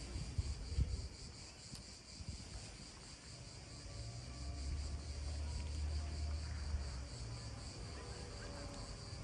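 Insects chirring steadily in one high band with a fine, even pulsing. A low rumble swells for a few seconds in the middle.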